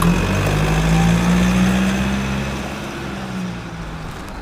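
An engine running with a steady hum, loudest at the start and fading away over the last couple of seconds.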